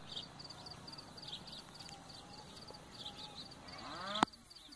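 Countryside ambience: short high chirps repeating in twos and threes throughout. About four seconds in, an animal call rises in pitch and ends abruptly in a sharp click.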